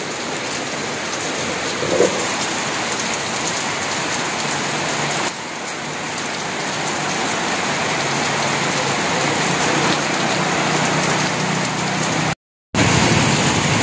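Heavy rain pouring steadily, a dense even hiss, cut off briefly near the end.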